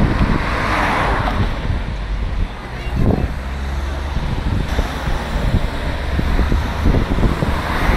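Cars of a cycling race's team convoy driving past, with engine and tyre noise on the road, and wind rumbling on the microphone.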